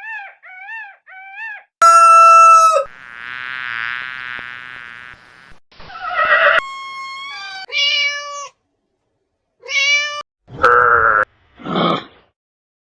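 A run of short, separate animal calls one after another, each a different pitched cry with brief gaps between them.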